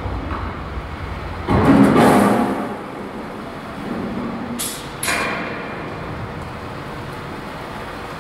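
Slaughterhouse processing-line machinery running: a steady industrial hum, a louder stretch of mechanical noise about one and a half seconds in, and two short hisses about four and a half and five seconds in.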